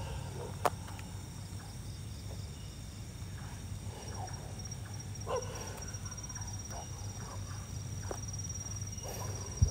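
Distant dogs barking now and then, a few short, separate barks, over a steady high-pitched insect trill. A sharp click sounds about half a second in, and a thump comes at the very end.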